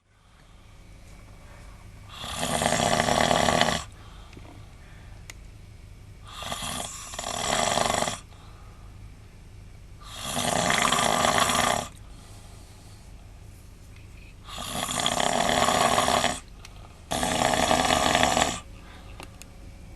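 A man snoring loudly: five long snores, one every three to four seconds, the second broken into a short catch and then a longer snore. A low, quieter steady hum fills the gaps between them.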